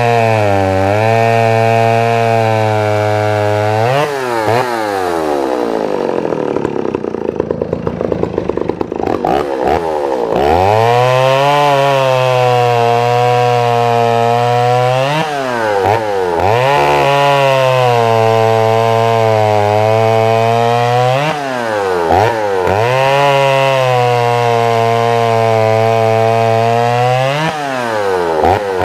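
Dolmar CA two-stroke chainsaw engine running at high revs. About four seconds in it drops to a rough, uneven idle, then revs back up a few seconds later. After that the revs dip briefly and pick up again several times.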